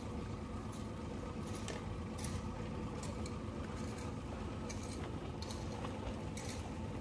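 Boat engine running steadily, with short splashes of water every second or so.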